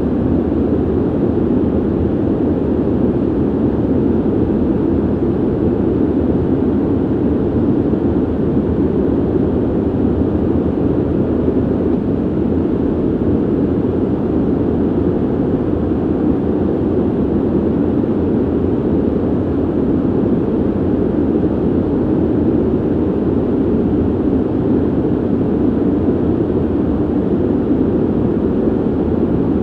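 Ventilation noise: a steady, low rushing of air that stays even and unchanging, with most of its weight in the deep range and little hiss.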